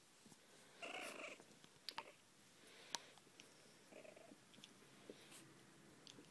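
Boston terrier puppies play-fighting, with two short, soft puppy vocalizations, one about a second in and another around four seconds, and a few sharp clicks in between.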